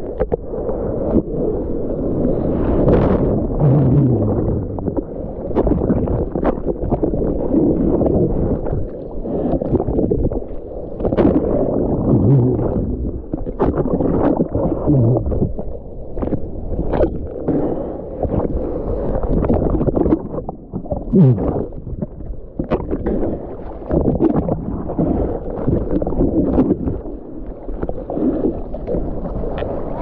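Sea water sloshing and churning around an action camera held at the waterline in breaking whitewater, with frequent short splashes and slaps. The sound is heavy and low, muffled as the camera dips into the water.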